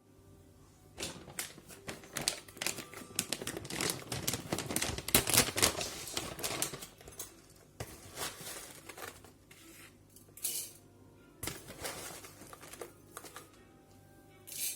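Handling sounds: a quick, irregular run of clicks, taps and crinkles as things are picked up and handled. The run is densest and loudest about five seconds in, then thins to scattered taps.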